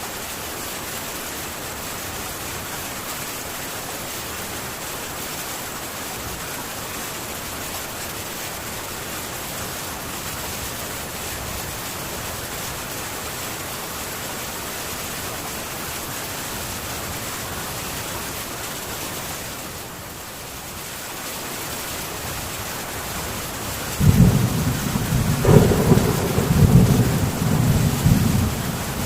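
Steady rain falling on a metal tin roof; near the end a loud rumble of thunder breaks in suddenly and keeps rolling.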